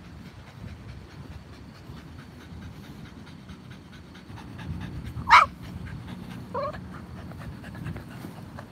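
A dog panting steadily. About five seconds in it gives a short high whine that falls sharply in pitch, and a second, shorter whine follows about a second later.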